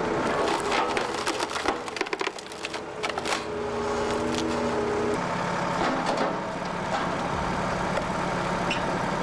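Engine-driven wood-processing machine running steadily while wood cracks and splinters under it, with a run of sharp snaps in the first few seconds. The engine note shifts about five seconds in.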